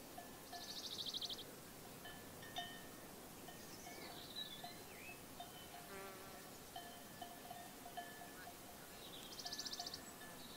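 Sheep bells clinking off and on in short notes at a few fixed pitches. A bird's rapid, high trill comes about half a second in and again near the end.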